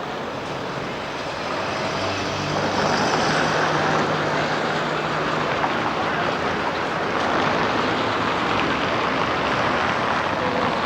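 Street traffic: motor vehicles running past, getting louder about two seconds in, with a low engine drone for a few seconds.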